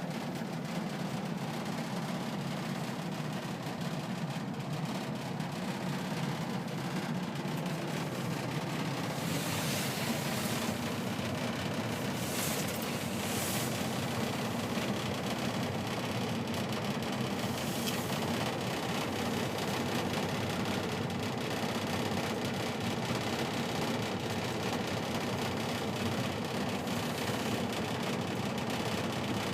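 Gas forced-air furnace running with a steady blower hum and rush, plus a few short hisses about ten to fourteen seconds in. With the thermostat wires jumped, it is cycling abnormally: the fan stops and starts and the burner flames last only a few seconds at a time.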